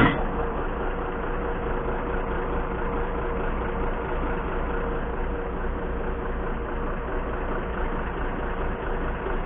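Heavy diesel engine idling steadily, a constant low rumble with an even hum above it.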